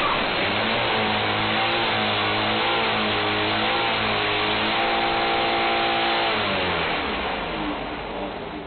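A car engine running at high revs, its pitch wavering up and down, then winding down and fading about seven seconds in.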